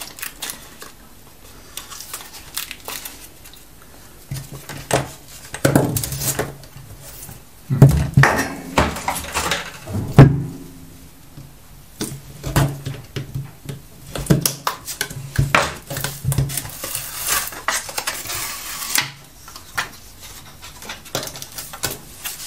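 Plastic case of an HP laptop battery pack being pried open with a screwdriver: many small clicks, cracks and scrapes of plastic, with a few louder knocks in the middle.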